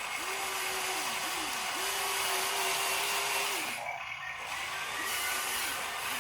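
Small electric motor of an RC excavator whining, speeding up, holding and slowing again in repeated ramps as it is worked, over a steady hiss. It drops out briefly about four seconds in, then comes back fainter.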